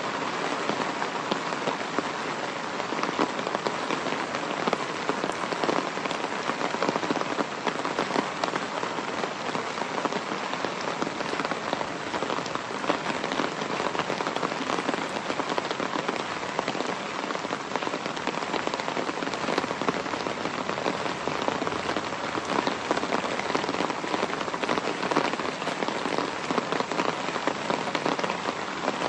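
Steady rain falling, a dense, even patter of many drops.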